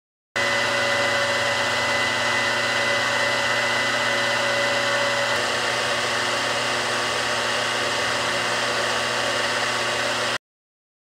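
Grizzly G0704 benchtop milling machine running at a constant spindle speed during spindle break-in: a steady motor and gear whine with several held tones. About halfway through the sound shifts slightly as one tone drops out, where the start and the end of the same speed step are joined.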